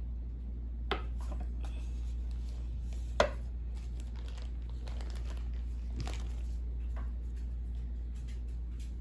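Plastic crinkling and a few sharp taps as corn tortillas are shaped from masa, over a steady low hum.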